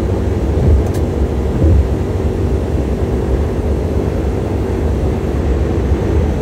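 Cabin noise inside a 1999 Honda Z Turbo at a steady highway cruise: the 660 cc turbocharged three-cylinder engine drones at an even pitch under road and wind noise. There are two brief low thumps about one and two seconds in.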